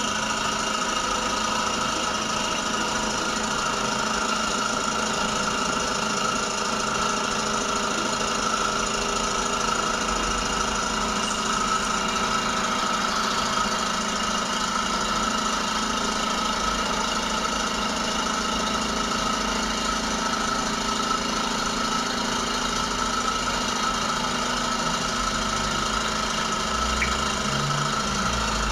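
Dental suction machine running steadily: a continuous motor hum with a hiss of air drawn through the suction tip.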